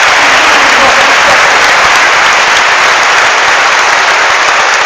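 A large hall audience applauding loudly, dense steady clapping with some cheering.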